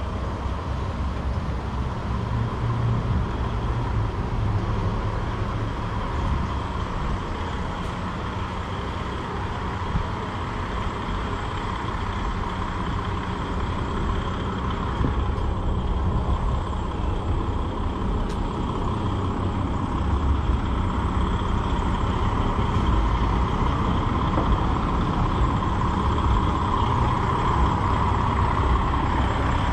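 Street traffic rumbling, with a tractor-trailer truck's diesel engine running and getting louder toward the end as it draws near.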